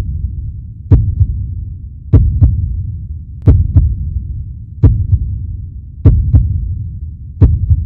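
Heartbeat sound effect: paired deep thumps, a strong beat followed closely by a weaker one, repeating slowly about every 1.3 seconds over a steady low hum.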